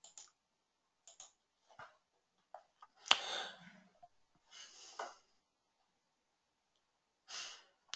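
Mostly quiet room tone broken by scattered faint clicks and breaths. A louder click with a short hiss after it comes about three seconds in, and a breath comes just before the end.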